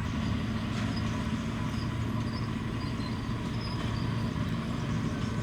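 Heavy diesel engine of earth-moving machinery, a bulldozer or dump truck, running steadily under load with an even low drone.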